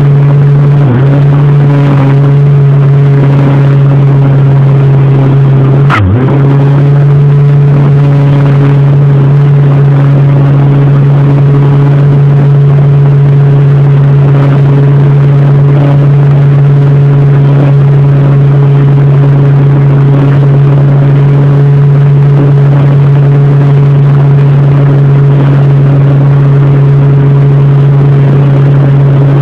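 Brushless electric motor and propeller of a radio-controlled model Cessna 182 in flight, heard very loud from a phone taped to the airframe, running at a steady high pitch. The pitch dips briefly about a second in and again about six seconds in, with a click at the second dip.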